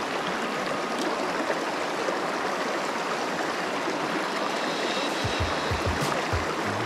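Small creek's running water, a steady rush. A few soft low thumps near the end.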